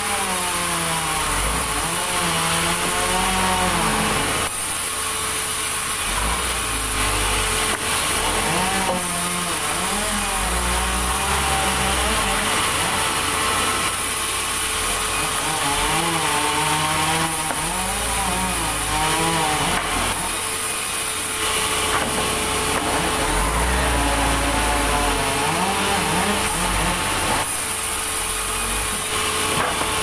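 Large vertical band saw cutting through timber, the blade's pitch wavering up and down as it works through the wood in several separate passes, over the steady running hum of the saw.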